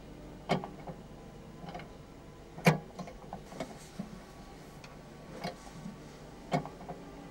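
Sparse, sharp clicks and ticks at uneven intervals, about half a dozen, the loudest a little under three seconds in, over a faint steady hum.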